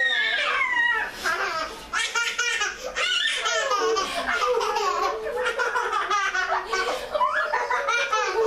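A young child laughing and squealing without a break, high-pitched and rising and falling in pitch.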